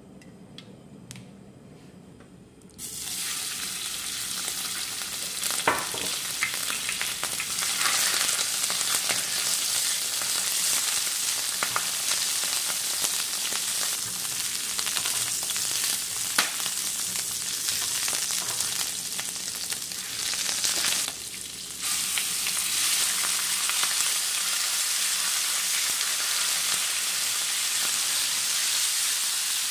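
Food in a wok starts sizzling suddenly in hot oil about three seconds in and keeps frying steadily, with the clicks and scrapes of a spatula stirring it. The sizzle drops briefly about twenty-one seconds in, then resumes.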